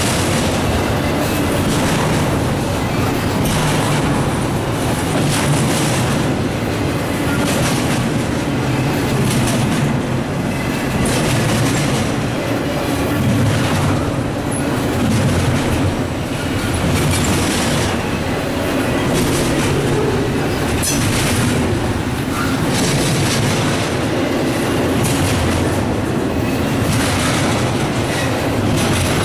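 Double-stack intermodal well cars of a freight train rolling past: a steady rumble of steel wheels on rail, with a clatter every second or two as each set of wheels goes by.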